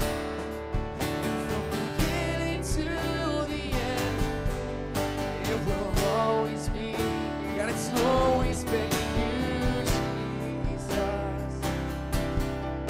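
Live worship band playing a song: a singer's voice over strummed acoustic guitar and electric guitar.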